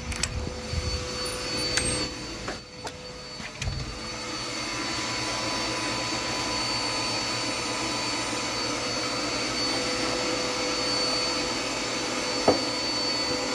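Dirt Devil Endura Reach upright vacuum cleaner running with a steady motor hum and whine. A few knocks of handling come in the first few seconds, and the vacuum gets louder and evens out about four seconds in.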